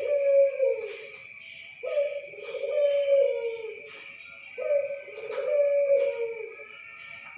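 Barbary dove (burung puter) cooing: a low coo phrase repeated about every two and a half to three seconds, each starting abruptly and sliding down at its end.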